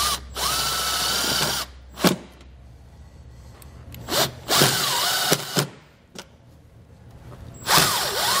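Milwaukee M18 cordless impact driver driving self-tapping screws into sheet metal: three runs with a motor whine that dips and rises as the screw bites, the last one longer. Brief trigger blips fall between the runs.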